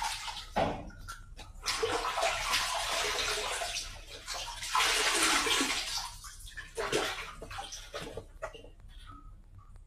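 Shoes being scrubbed by hand in water: irregular splashing and scrubbing in uneven spurts, louder through the first half and quieter near the end.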